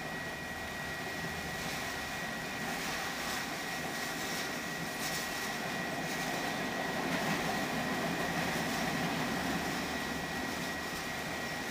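A train rolling past a grade crossing, a steady rumble of wheels on rail that swells gently past the middle, with a thin steady high tone above it.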